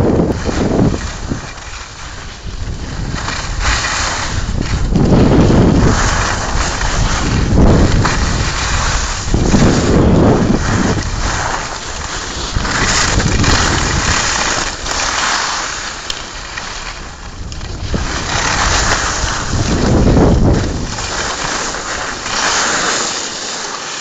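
Wind buffeting a phone's microphone while moving fast down a ski slope, in low rumbling gusts that swell and fade every two to three seconds, alternating with the hiss of edges scraping over hard-packed snow.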